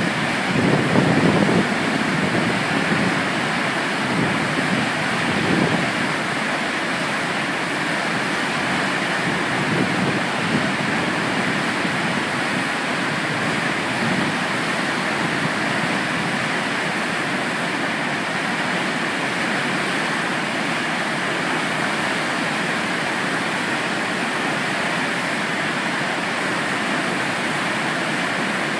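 Spring flood water pouring through the open spillway gates of a hydropower dam and crashing into the rapids below: a steady rushing of water, with a few low surges in the first six seconds.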